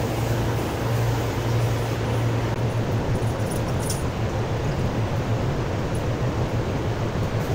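Steady low machine hum under a constant rushing noise, with a few faint ticks about three and a half to four seconds in.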